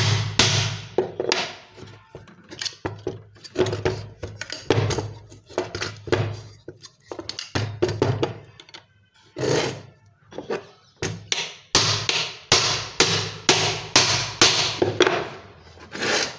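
Hammer blows, metal on metal, driving a steel rod and a chisel against the casing of a washing machine spinner motor to break out the rivets that hold it together. The blows are irregular at first, with a lull in the middle, then come as a steady run of about two a second near the end.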